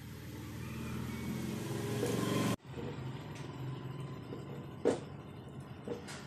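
A steady rumble grows louder for about two and a half seconds and then cuts off abruptly. After it comes a low hum with a couple of sharp clicks from pliers gripping a steel bike cable.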